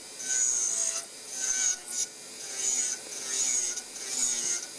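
A milling unit's rough-grinding cutter, spun by a micromotor, grinding a cast metal cap in short strokes. It makes a scraping hiss that swells and fades about once a second as the cutter is worked against the metal.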